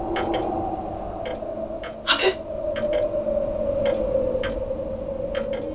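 Steady sustained drone tone from the background music score, with a few faint scattered clicks and one louder click a little over two seconds in.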